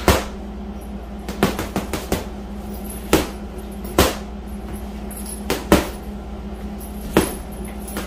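8-ounce boxing gloves punching a hanging heavy bag: about nine sharp thuds, in singles and quick pairs, spaced irregularly. A steady low hum runs underneath.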